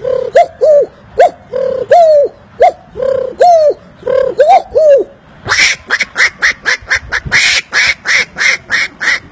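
A man imitating animal calls with his mouth. First comes a run of short calls that rise and fall in pitch, about three a second. About five seconds in, it changes to a faster run of harsher, rasping calls, about four a second.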